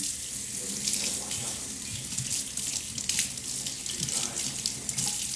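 Water running from a tap, a steady splashing hiss.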